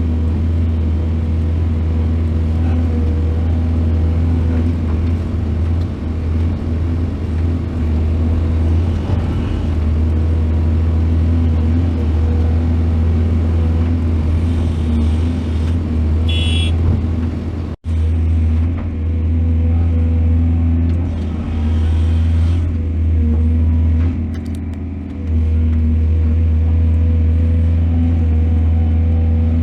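Excavator's heavy diesel engine running steadily under load, with a deep even hum. A short high squeal comes a little past halfway, just before the sound cuts out for an instant.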